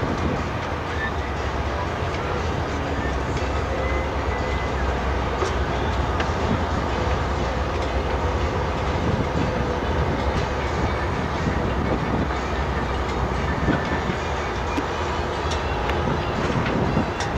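Steady low rumble of a boat's diesel engine running at an even speed, with a noisy wash of wind and water over it and a few faint clicks.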